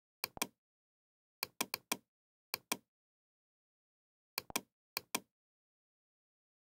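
Computer mouse button clicking, each click a quick press-and-release pair, about six of them in scattered groups with dead silence between.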